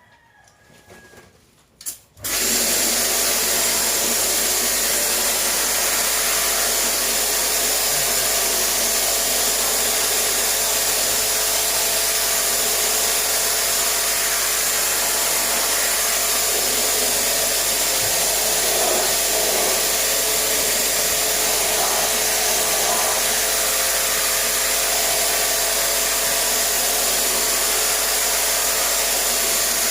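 A small electric pressure washer starts up about two seconds in and runs steadily, its motor humming under a loud hiss of water spray, washing down the air conditioner unit.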